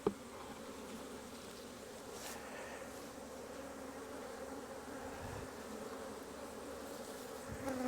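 Honey bees buzzing steadily in a dense, continuous hum around an open hive, with a brief tap right at the start.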